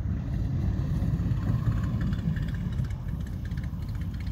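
SPAD biplane's engine idling as the aircraft rolls out on the grass after landing, under a steady low rumble.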